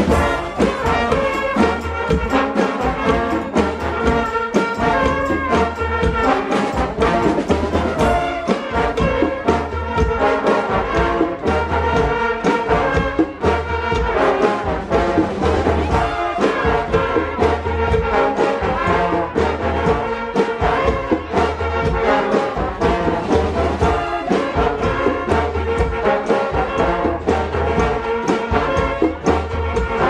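Brass street band playing: trombones and trumpets over a steady drum beat.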